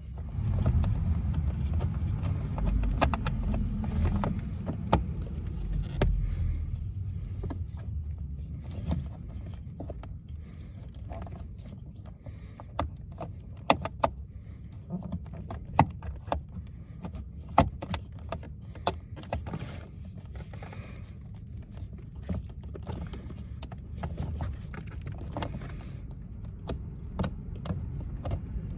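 Scattered sharp clicks and knocks of hand work on plastic car interior parts over a steady low rumble that is louder for the first few seconds.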